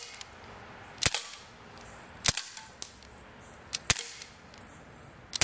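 Daisy Powerline 15XT CO2 BB pistol firing: three sharp pops about a second apart, with a lighter click just before the last, as BBs strike the cans.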